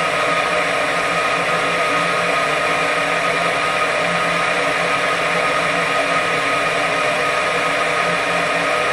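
Gas furnace's fan motor running steadily as a constant whir with a high whine, during the ignition sequence: the pilot is lit but the main burners have not yet caught.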